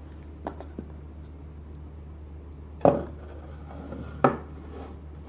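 Rigid cardboard box and its lid handled on a wooden table: a couple of light taps, then two louder knocks about a second and a half apart as the lid comes off and is set down.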